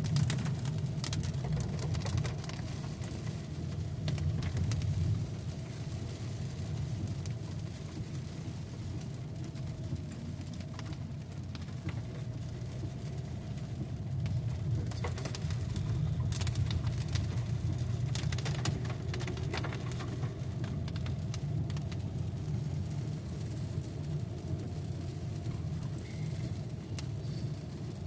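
Steady engine and road rumble heard inside a moving car's cabin, with scattered light clicks and taps throughout.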